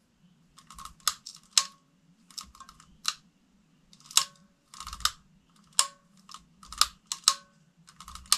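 Pull-chain switch on a plastic lamp-holder light fixture being tugged on and off over and over, clicking about a dozen times at uneven intervals. The fixture is being cycled to test a poor, arcing connection.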